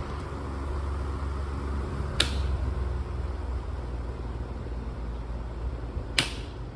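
Kuo Horng ST-161 electric fan motor running with a steady hum, turning freely on a freshly oiled front bearing that had been seized. Two sharp clicks come about two seconds in and again about six seconds in.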